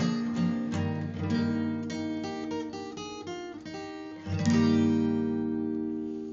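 Acoustic guitar playing the end of a hymn tune: single notes picked in turn, then a final strummed chord about four seconds in that rings out and slowly fades.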